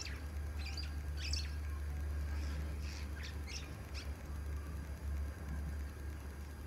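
Birds chirping in short, separate calls, about half a dozen in the first few seconds, over a steady low hum.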